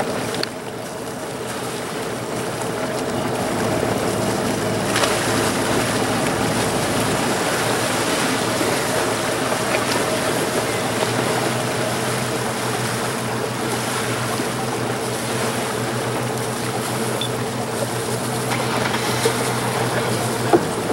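Tall-ship schooner's auxiliary engine running at low power with a steady low hum while it manoeuvres in to dock, under a broad rush of wind and water. The lowest hum grows stronger about halfway through.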